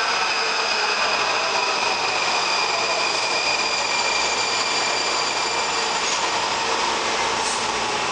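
Washington Metro subway train rolling slowly along an underground platform and slowing almost to a stop, a steady rumble with a high whine that slowly falls in pitch.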